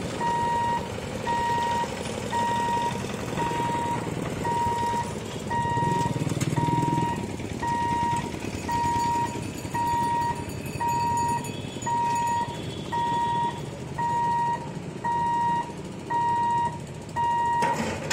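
Level crossing gate warning buzzer beeping steadily, about one high-pitched beep a second, the signal that the barrier is lowering to close the road before a train. Passing motorbike and scooter engines run underneath.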